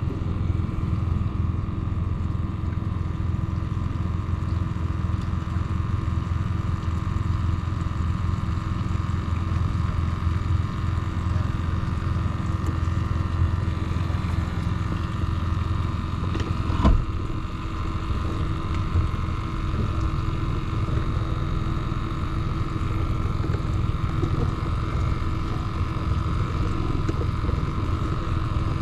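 Bass boat's outboard motor running steadily under way, with a low rumble and a steady whine. One sharp knock about two-thirds of the way through.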